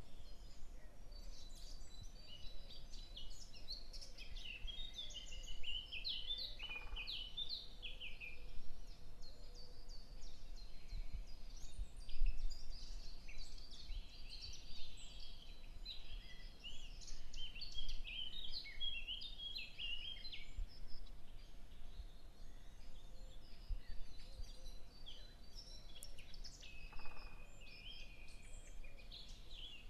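Small birds chirping and twittering, a dense run of short high calls one after another, over a faint low rumble.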